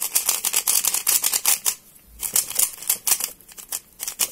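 Mofange Thunderclap v2 3x3 speed cube being turned rapidly by hand: fast runs of light plastic clicks as the layers snap past each other, with a short pause about two seconds in and another near the end.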